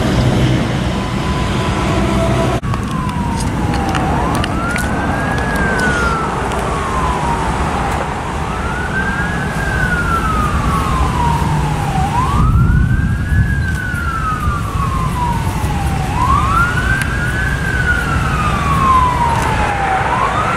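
Warning siren wailing, its pitch rising and falling about every four seconds after a steady tone in the first couple of seconds, over a steady low rumble of wind.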